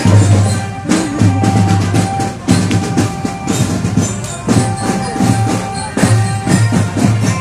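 Loud music with heavy low drums and busy percussion.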